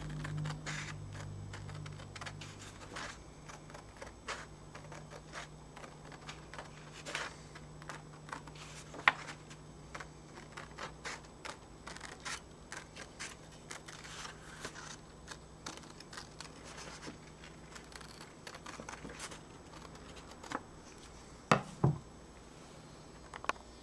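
Scissors snipping through a sheet of paper along a drawn circle: a long run of short, crisp snips with small paper rustles. Two louder knocks come near the end.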